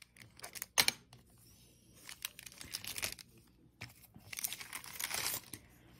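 Paper crinkling and rustling as a thin rolled sheet of gold polymer clay is handled and lifted from it, with a sharp click about a second in.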